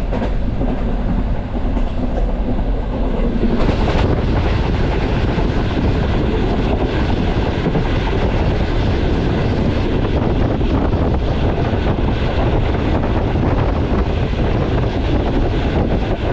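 Passenger train coach running at about 100 km/h, heard from on board: a steady loud rumble of wheels on rail, with faint rapid clicks of the rail joints. From about four seconds in the sound gets louder and brighter, as heard from the open window.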